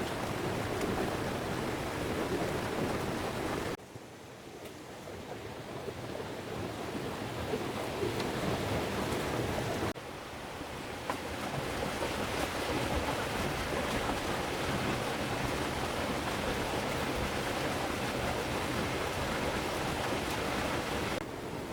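A steady rushing noise that drops abruptly about four seconds in and again about ten seconds in, each time swelling back up.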